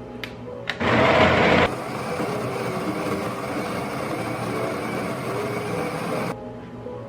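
A small electric kitchen appliance motor. After two clicks it starts loud for about a second, then runs steadily for about five seconds and cuts off suddenly.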